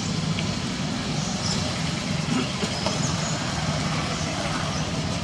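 Steady low rumble of an engine running at idle, with a few faint short high chirps over it.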